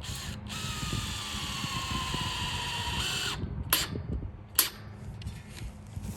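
Power drill driving a wood screw through the greenhouse's metal frame into the wooden base: a motor whine that sinks slightly in pitch as the screw goes in, stopping after about three seconds. Two sharp clicks follow, the second one loud.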